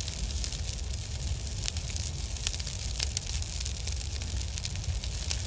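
Fire sound effect: steady crackling over a low rumble.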